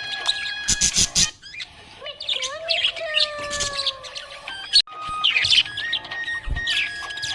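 Budgies chirping and twittering in quick high bursts, with a slower falling whistle a couple of seconds in, over faint backing music.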